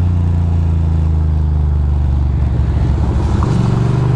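Ducati Monster 620's air-cooled L-twin engine running steadily while riding, its pitch rising slightly near the end.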